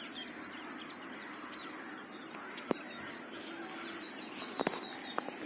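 Quiet rural outdoor ambience: faint bird chirps over a steady high-pitched hum, with a few light clicks.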